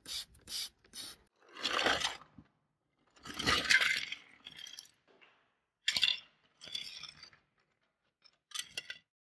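Black plastic model-car parts (chassis, wheels and rubber tyres) clattering as they are tipped onto a wooden tabletop, loudest about three and a half seconds in, with lighter knocks and clicks before and after as the parts are handled and settle.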